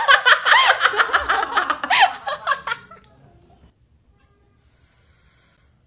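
A person laughing loudly in a high voice, quick rapid pulses of laughter that stop about three seconds in.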